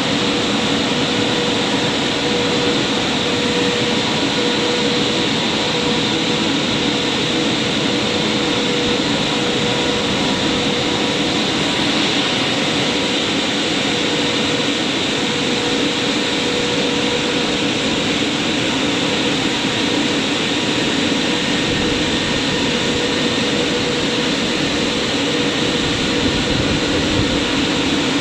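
Christ Varius rollover car wash machine running steadily: a continuous whooshing machine noise with a steady hum underneath.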